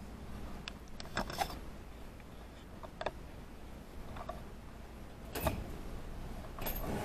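A handful of separate light clicks and knocks spread over several seconds, over a faint low hum.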